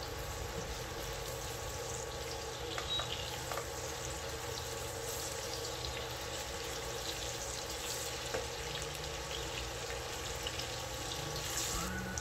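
Red onion sizzling as it fries in hot oil in a pan: a steady hiss with small crackles. It is cooking until it starts to brown.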